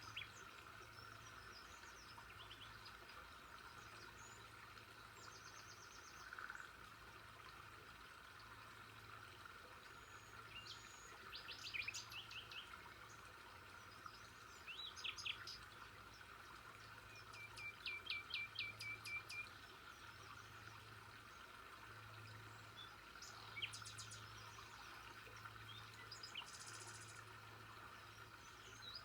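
Birds chirping and calling on and off, with a quick run of repeated notes about eighteen seconds in, over a faint steady background hiss.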